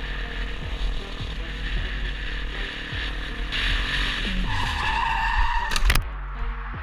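Motorcycle engine running with the revs rising and falling, then from about halfway a loud hissing scrape of the bike skidding on the tarmac, ending in a sharp crash a little before the end as it goes down; the engine keeps running quietly afterwards.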